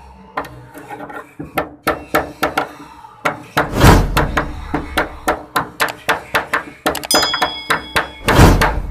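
Hammer tapping on a torch-heated car body panel in quick, even blows, about three a second. A loud rushing burst cuts in a little over a third of the way through, and another comes near the end. A short high chime rings just before it.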